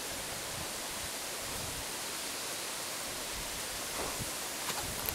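Steady outdoor wind noise, with irregular low gusts buffeting the microphone and a few faint rustles near the end; the tractor's engine is not heard running.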